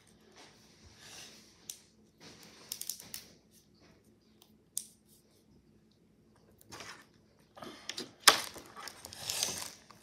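Plastic Wacky Track link-chain fidget toy clicking and rattling as it is twisted and handled, in short scattered bursts. In the last few seconds, louder clicks and rustling as things are handled close to the microphone.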